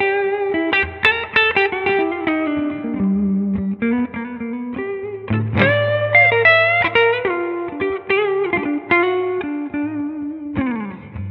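Electric guitar played through a Rola Reverb 50 amplifier: a lightly driven lead run of single picked notes with string bends, ending with a chord struck near the end and left to ring.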